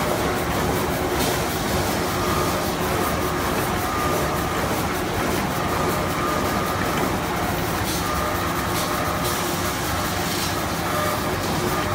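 Automatic band saw toilet-roll cutting machine running steadily, a continuous mechanical noise from its motors, conveyor and saw. A faint whine comes and goes every second or so, and there are occasional sharp clicks.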